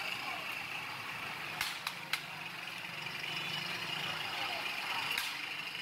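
Metal spatulas scraping and clinking against a large steel pan of gajar halwa, with a few sharp clinks, over a steady rushing background noise.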